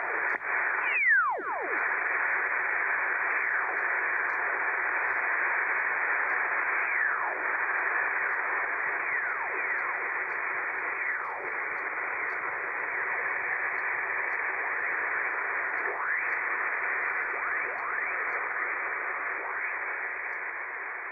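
Shortwave amateur-radio receiver hiss, thin and steady, with several whistling tones sliding down in pitch as the receiver is tuned across signals. The strongest whistle comes about a second in.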